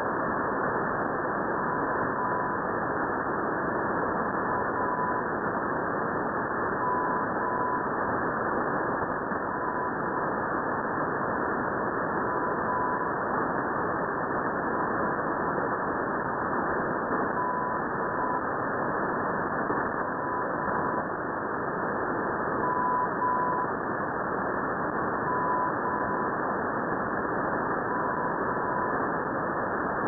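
Shortwave radio static hiss, with a weaker Morse code tone of about 1 kHz sending the letter M (dash dash) over and over, roughly every two and a half seconds. It is the Russian Navy single-letter propagation beacon "M" on 4558.4 kHz, heard through a receiver in upper sideband mode.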